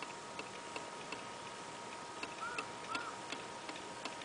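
Steady, even ticking, about three ticks a second, over a faint steady hum. Two short high chirps come around the middle.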